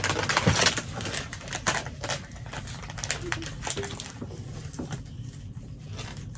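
Irregular clicks, taps and rustles of small plastic toys and packaging being handled and unwrapped.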